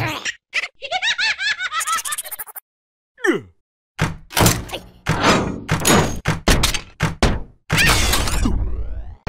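Cartoon slapstick sound effects and wordless character voices: a quick run of squeaky chirps, a short falling whistle, then a fast series of thunks and whacks mixed with squeals.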